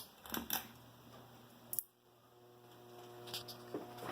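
A few clicks, then a 42-inch Litex hugger ceiling fan's electric motor humming steadily on high, growing louder from about two seconds in as it comes up to speed.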